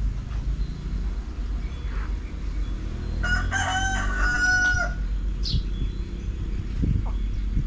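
A rooster crows once, about three seconds in, in a single call lasting under two seconds, over clucking from a flock of chickens.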